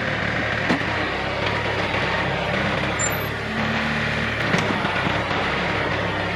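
John Deere 110 backhoe's diesel engine running steadily under work, its pitch shifting slightly, with two short sharp knocks, one under a second in and one past the middle.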